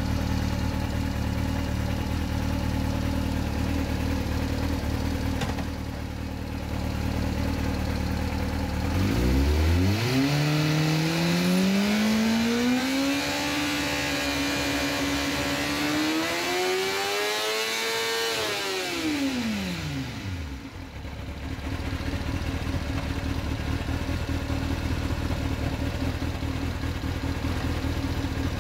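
Kawasaki ZX-6R inline-four with a MIVV GP slip-on exhaust idling, then run up in first gear. About nine seconds in the revs climb smoothly, hold, climb again to a peak, then drop back to idle about twenty seconds in.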